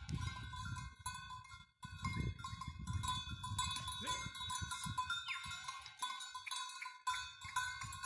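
Goat bells from a passing herd clanking and jingling, many bells ringing at once in an uneven jumble.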